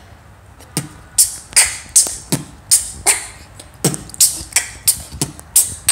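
A boy beatboxing with his mouth: a rhythmic beat of low, kick-like thumps about every second and a half, with short hissing snare and hi-hat sounds between them, starting about a second in.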